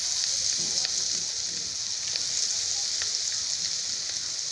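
Potato and onion pakoras in gram-flour batter deep-frying in very hot oil: a steady crackling sizzle that swells right at the start as fresh pieces are dropped in.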